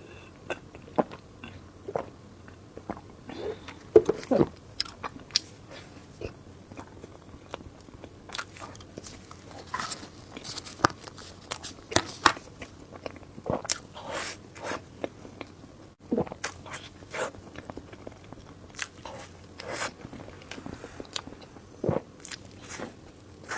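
Close-miked eating: a person biting and chewing food with irregular wet crunches and clicks, mouth sounds typical of a mukbang eating show.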